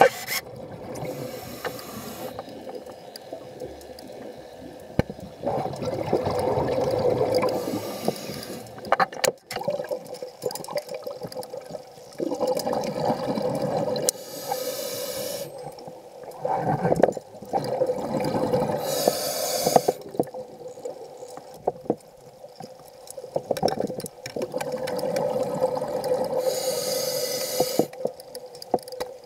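Muffled underwater noise picked up through a camera housing: water sloshing and gurgling that swells and fades every few seconds over a thin steady hum, with a few brief hissing bursts.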